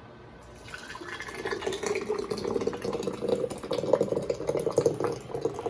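Thick blended tomato sauce pouring into a glass canning jar, filling it for pressure canning, starting about half a second in.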